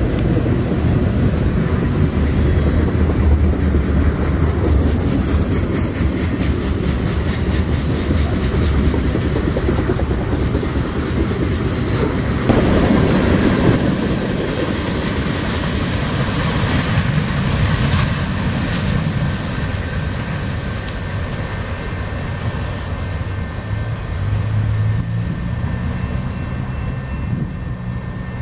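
Freight train of tank cars and boxcars rolling past: a steady rumble with the clickety-clack of wheels over rail joints, getting louder briefly about halfway through.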